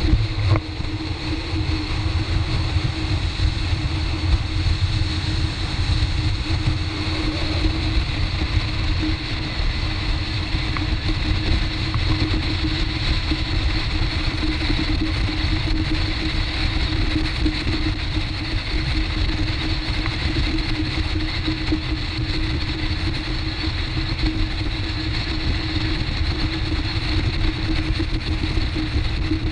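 Open tour motorboat's engines running steadily at speed, with the rush of water past the hull.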